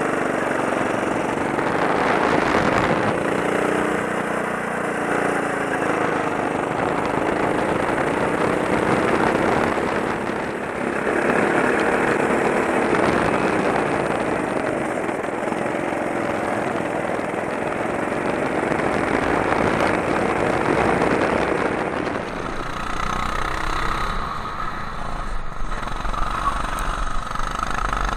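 Sodi rental kart's four-stroke engine running at speed, heard on board, its pitch rising and falling with the throttle through the corners. Near the end the sound turns thinner, with a steady low hum under it.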